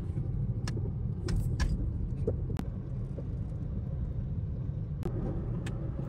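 Moving car heard from inside the cabin: a steady low road and engine rumble, with a few faint light clicks.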